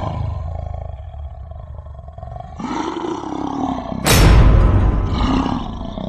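Cinematic intro sound effects: a low rumble, joined about two and a half seconds in by a growling roar, then a loud boom about four seconds in that slowly dies away.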